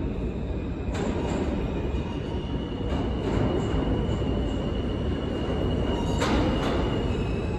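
New York City subway train (an R train) pulling into an underground station, with a steady rumble. A high, steady squeal of the wheels starts about a second in. A few sharp clicks from the wheels cross the rail joints, two of them close together near the end.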